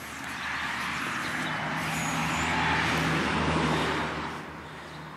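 A road vehicle passing by: its noise swells to a peak near the middle and fades away about four seconds in.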